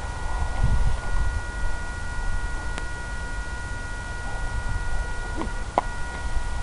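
A steady, high electronic whine made of several fixed tones over a low rumble, with a few faint clicks.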